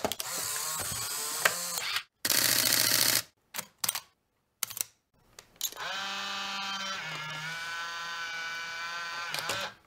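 Film camera mechanism sounds: a string of shutter clicks and short rasping film-advance strokes, followed by a steady whirring motor-wind sound lasting about four seconds that drops in pitch partway through and stops abruptly.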